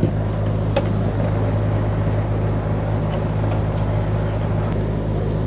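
Steady low machinery hum in the background, with a few light clicks as plastic connectors and wiring are handled inside the fuel tank opening; the clearest click comes almost a second in.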